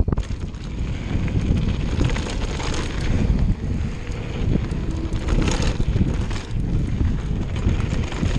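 Wind buffeting the camera microphone as a mountain bike rolls fast down a dirt trail, with tyre noise and frequent short knocks and rattles from the bike over the rough ground.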